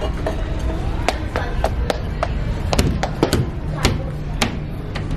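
A toddler banging and tapping toy pans and utensils on a child's play kitchen: a string of sharp, irregular knocks and clacks, a few of them loud.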